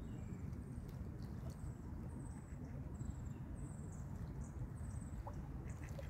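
Steady low rumbling outdoor noise with a short, thin, high-pitched chirping trill repeating roughly every half second to a second.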